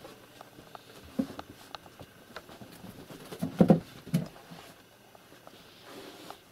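A kitten playing, scuffling and pawing at a toy, with scattered light taps and patter and a short cluster of louder thumps about three and a half seconds in.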